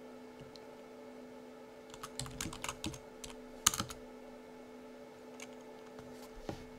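Typing on a computer keyboard: a quick run of keystrokes about two seconds in, the last one the loudest, then a few single clicks, over a steady low hum.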